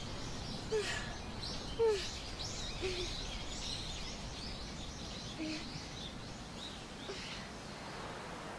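Woodland ambience: small birds chirping repeatedly over a steady background hiss, with a few short lower notes, the loudest about two seconds in.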